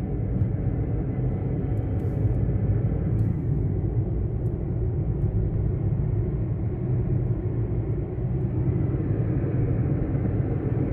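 Steady low rumble of engine and tyre noise inside a moving car's cabin.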